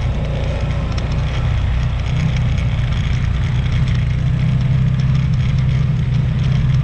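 Off-road vehicle's engine running steadily while driving over sand, a low even drone that holds its pitch, under a haze of rushing wind and tyre noise.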